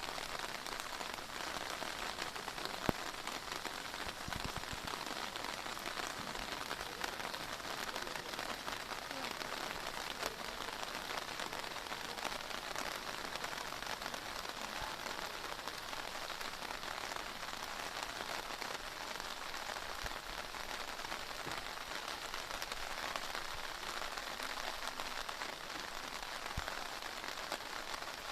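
Heavy rain pouring down: a steady, even hiss of a downpour, with a single sharp tick a little under three seconds in.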